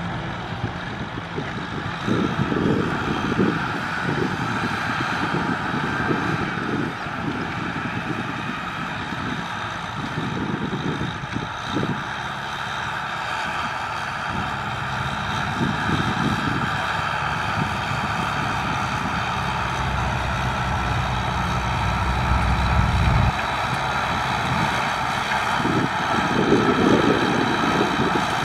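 Kubota M6040SU diesel tractor engine running steadily under load while pulling a cultivator through dry soil, with an uneven low rumble that swells and fades.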